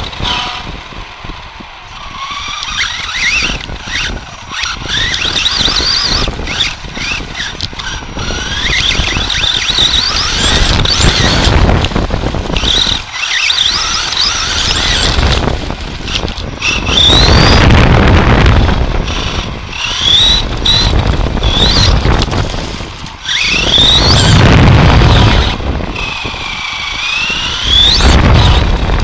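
Team Associated SC10 radio-controlled short course truck heard from a camera mounted on the truck itself. Its motor and drivetrain whine rises and falls in pitch again and again as it speeds up and slows, over rushing wind and tyre noise.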